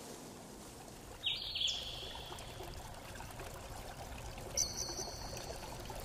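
Steady rush of flowing water, with two short bird calls over it: one about a second in and a higher one a little past the middle.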